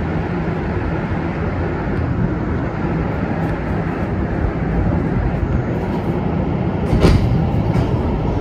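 Rubber-tyred Montreal Metro train running and coming to a stop in a station, heard from inside the car as a steady low rumble. A sharp knock about seven seconds in, followed by a few fainter clicks.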